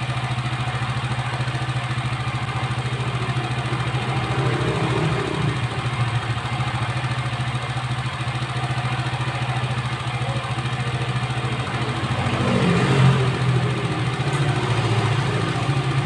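Motorcycle engine idling steadily, with a brief swell in loudness about twelve seconds in.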